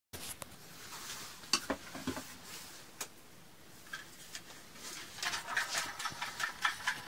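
Hard plastic clicks and knocks as an RV shower faucet's plastic housing and valve are handled and fitted together, with a quick run of clicks near the end.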